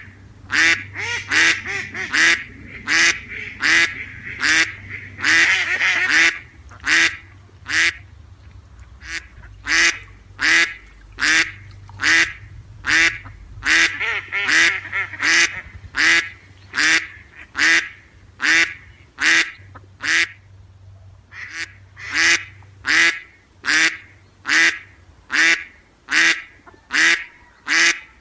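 Domestic duck quacking over and over, a steady run of short, loud quacks about two a second, easing off briefly about eight seconds in and again about twenty seconds in.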